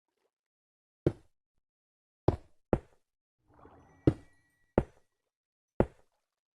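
Six sharp knocks at uneven intervals, with a short rustle in the middle.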